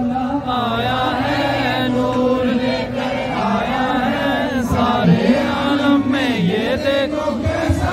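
A group of men chanting together in a crowd, their voices rising and falling over a held low note.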